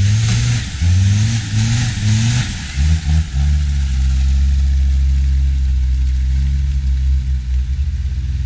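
Land Rover Discovery TD5's five-cylinder turbodiesel engine revved in three or four quick rising bursts while climbing through deep mud, then held at a steady, lower pull for the rest of the time.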